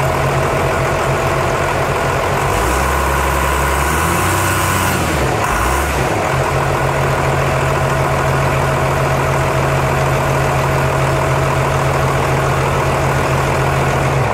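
Cummins 5.9 diesel engine of a Case 621 wheel loader running on a newly fitted fuel injection pump. Its speed shifts between about three and six seconds in, then it runs steadily.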